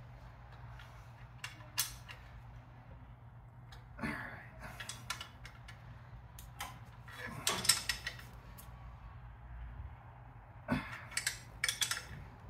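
Open-end wrench clicking and clinking against the manifold nuts and studs of a Ford Model A four-cylinder engine as they are tightened, in scattered metal taps with a louder cluster past the middle and another near the end. A steady low hum runs underneath.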